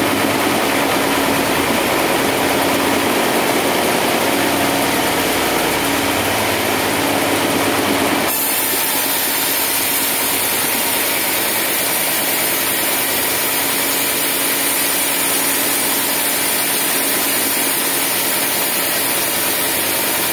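Sawmill log band saw and its carriage machinery running steadily with a constant hum. About eight seconds in the sound changes abruptly to a brighter, hissier tone.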